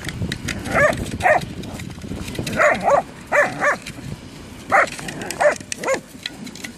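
Whippets giving short, pitched play barks and yelps, about nine in all, in twos and threes, while tussling over a ball.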